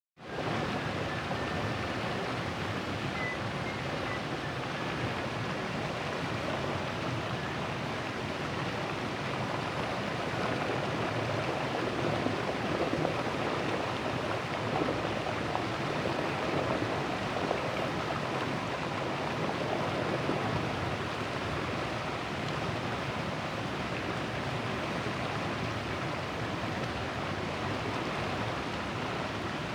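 River water rushing steadily past a large boulder, an even wash of noise with small swells. It fades in at the very start.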